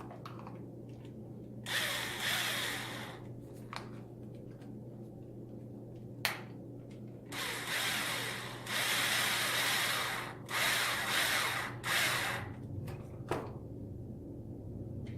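Electric screwdriver running in four short runs of about one to three seconds each, driving the cap head screws that fasten a bumper brace to an RC truck chassis. There are sharp clicks between the runs.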